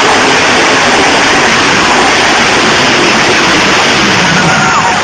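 Monster truck engine running very loud, heard as a steady, dense wash of noise with no clear pitch.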